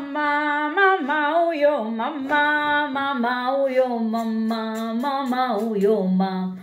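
A woman singing alone, without instruments, in long held notes; the singing fades out near the end.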